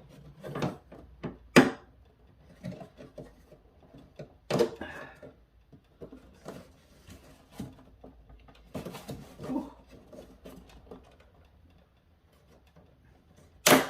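Hard plastic parts of a Super7 Snake Mountain playset knocking and clicking as its gate piece is worked into place. Scattered handling clicks come with quiet gaps between them, and the sharpest click is near the end.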